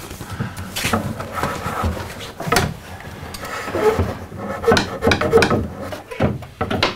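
Fiberglass fish stick knocking, clicking and scraping against the wood ceiling and the hole it is being fed through, with the rustle of gloved hands working it. Irregular, with a few short squeaks in the middle.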